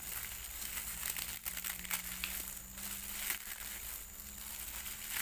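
Crisp fried instant noodles being crushed and crumbled in a gloved hand: a dense run of dry crackling and snapping.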